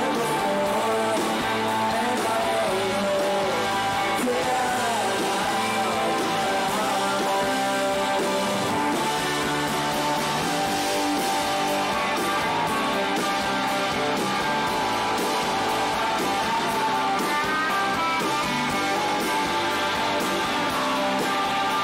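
Live rock band playing: distorted electric guitars over a drum kit, with a man singing lead at the microphone.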